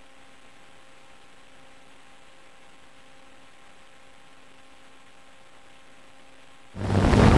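Faint steady electrical hum with several even tones, then near the end a sudden switch to the loud whir of a quadcopter's motors and balanced wooden propellers in flight.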